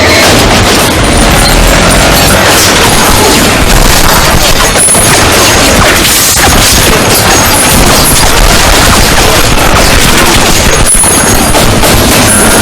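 Action-film soundtrack mix of explosions, crashes and bursts of gunfire, dense and loud throughout, with a few sharp hits standing out.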